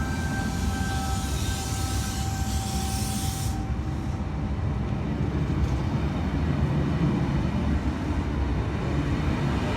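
V set electric intercity train pulling out and running past with a steady deep rumble, a few thin steady tones from it fading away about halfway through.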